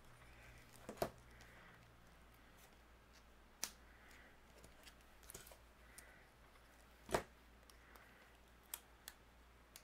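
Quiet room with a few scattered sharp clicks and light taps from hands handling small die-cut paper pieces, gluing them and pressing them onto an embroidery hoop. The loudest clicks come about a second in and about seven seconds in.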